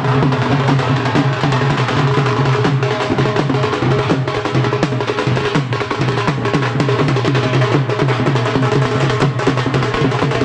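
Dhol-style barrel drums beaten with sticks at close range, playing a fast, continuous rhythm of sharp strokes.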